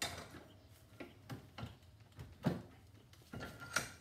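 Scattered metal clicks and knocks of a hand tool working a barbecue gas regulator clamped in a bench vise, as its brass fitting is unscrewed from the cast aluminum body; the sharpest knock comes about halfway through.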